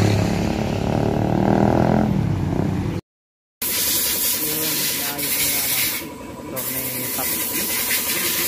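Street traffic with a vehicle engine running, fading out after a couple of seconds. After a sudden cut, a steady hiss with voices underneath.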